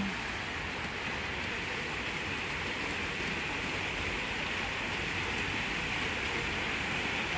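Water from a stone fountain splashing steadily as it spills over the rim of its basin into the pool below.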